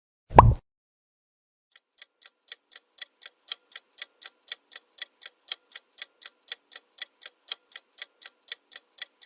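A short pop sound effect, then a quiz countdown timer ticking evenly at about four ticks a second, starting about two seconds in.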